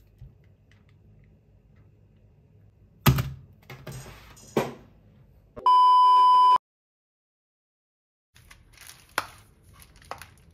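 A loud, steady electronic censor bleep lasting about a second, halfway through, of the kind laid over a swear word. Before and after it come soft handling sounds of a phone on bubble wrap: a few light clicks and taps, and rustling as it is wiped.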